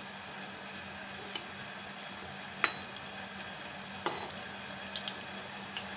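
Gulab jamun balls sizzling as they fry in hot ghee in a steel kadhai, a steady hiss, with a steel ladle clinking against the pan as it turns them: two sharper clinks around the middle and a few lighter ticks.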